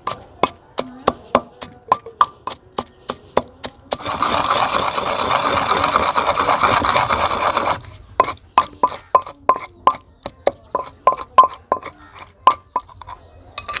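Wooden pestle pounding chutney paste in a stone mortar, sharp knocks about three times a second. About four seconds in, the pestle is ground round against the stone for a few seconds with a steady scraping rasp, then the pounding starts again.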